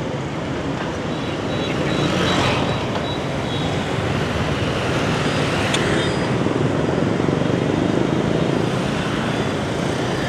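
Dense city traffic, mostly motor scooters and motorbikes, running past in a steady din of small engines and tyres. One vehicle passing close swells louder about two seconds in.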